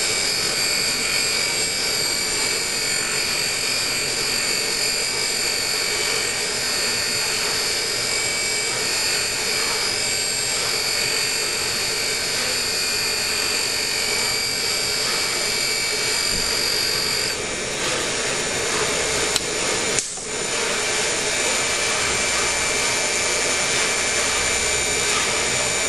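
Valve refacing machine's grinding wheel running, grinding the face of a Fiat 1200 engine valve. A steady high whine runs over the grinding noise and drops out about two-thirds of the way through, with a brief dip in the sound a few seconds later.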